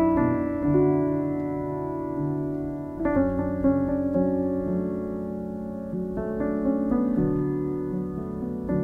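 Background piano music: slow chords struck and left to ring, changing every few seconds.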